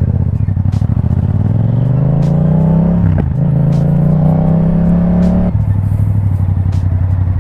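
Yamaha MT-07 parallel-twin engine through a full Akrapovic exhaust, pulling away: the revs climb, drop with a gear change about three seconds in, then climb again more slowly. Just past five seconds the throttle closes and the engine falls back to a steady low note.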